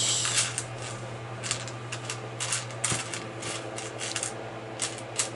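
Small plastic LEGO pieces clicking and rattling against each other as they are sorted through by hand, in short irregular clicks.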